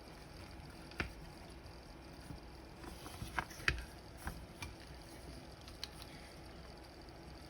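Scattered small clicks and taps, about seven spread irregularly, the sharpest about a second in and a little past the middle: hands handling the parts of an opened vintage flip clock.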